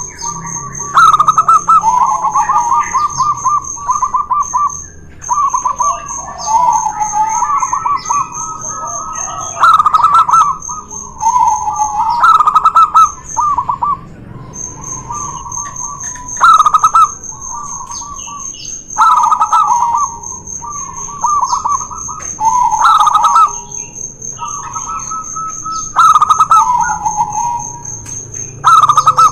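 Two zebra doves (perkutut) cooing against each other, their rolling, stuttering coo phrases of a second or so repeating every few seconds and often overlapping.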